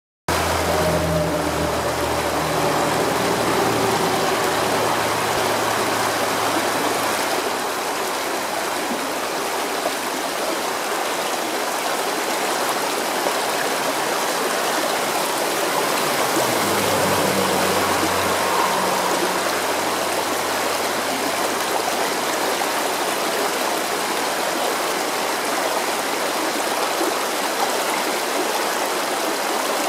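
Shallow rocky stream running steadily, a continuous even rush of water over and between stones.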